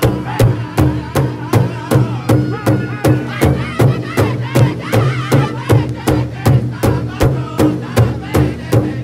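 A powwow drum group: several men strike one large shared drum in unison, about three beats a second, while singing together in high, wavering voices.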